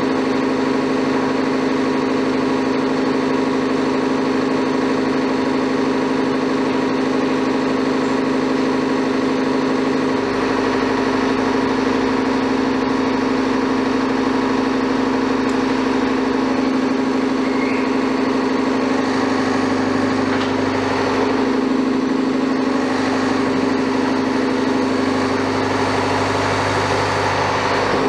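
Diesel engine of a Liebherr wheeled excavator idling steadily, a low hum with a slight change in tone about a third of the way through.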